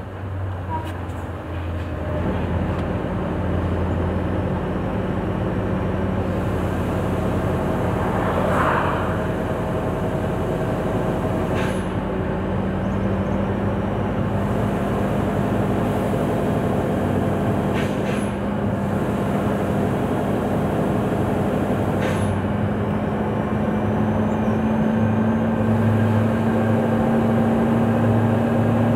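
Scania 164L 580's V8 diesel engine running steadily, heard from inside the cab on a downhill run, its drone slowly rising in pitch. A brief hiss comes about eight seconds in, and a few faint clicks later on.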